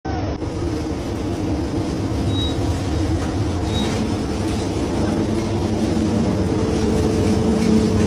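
Fishing boat's engine running at sea, a steady low drone.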